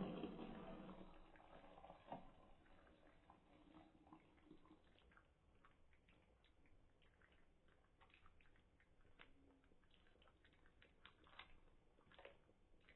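Near silence with faint scattered ticks and clicks from a thick pasta and potato soup being stirred with a metal spoon in a ceramic pot. A knock at the very start fades over the first second, and a smaller one follows about two seconds in.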